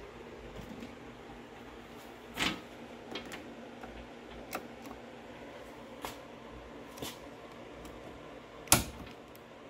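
Scattered light clicks and taps from multimeter test leads being handled and touched to the inverter's output terminals, about six in all, the loudest near the end, over a faint steady hum.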